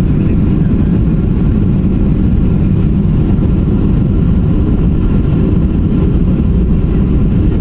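Steady, loud low rumble of an airliner's cabin just after landing, as the aircraft rolls along the runway.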